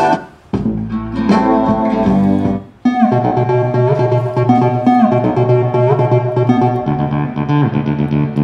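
Music played through a compact TPA3116 class D stereo amplifier. It cuts out twice in the first three seconds and comes back each time as a different piece, as when tracks are skipped.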